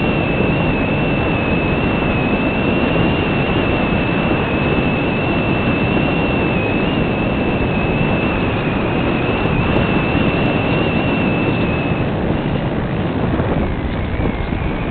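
Multiplex Cularis RC motor glider in flight, heard from its onboard camera: a steady rush of wind and propeller with a thin high electric-motor whine. The whine wavers and fades about twelve seconds in.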